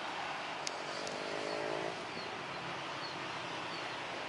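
A road vehicle's engine passes briefly, its pitch rising slightly, about half a second to two seconds in, over a steady rushing background. Two sharp clicks come near the start, and faint bird chirps come later.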